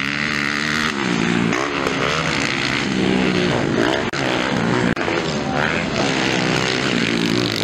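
Motocross dirt-bike engines racing, their pitch repeatedly rising and falling with throttle and gear changes. The sound drops out briefly twice, about four and five seconds in.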